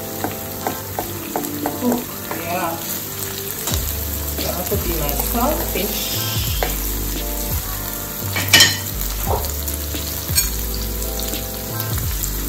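Chayote, onion, tomato and sweet pepper sizzling in a frying pan while being stirred with a wooden spoon, with small scrapes and clicks throughout. There is one sharp knock about two-thirds of the way through.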